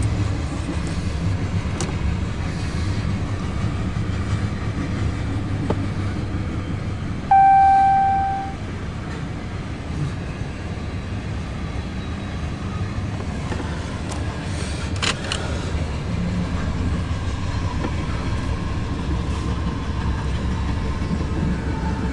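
Loaded coal train rolling through a grade crossing: a steady low rumble of wheels on rail, heard from inside a car. About seven seconds in, a single loud tone sounds suddenly and fades away within about a second.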